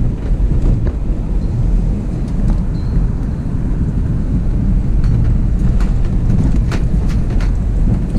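Vehicle driving: a steady low road and engine rumble, with a few light clicks and rattles about two thirds of the way through.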